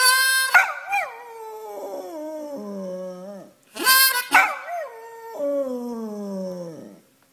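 Dog howling: two long howls, each starting loud and sliding slowly down in pitch as it fades.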